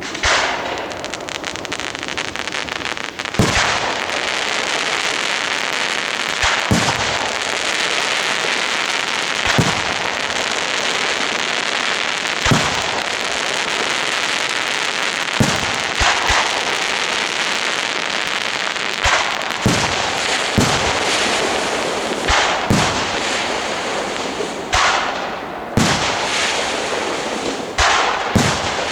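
Professional aerial fireworks display: a dense, continuous crackle of bursting stars, with sharp shell bursts banging every two to three seconds.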